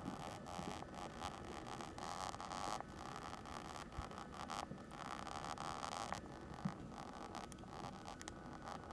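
Mungyo soft oil pastel stick scraping and rubbing on a black-painted MDF chalk-art board, sped up about 25 times so the strokes run together into a rapid, faint scratchy rattle like a machine gun, coming in spells.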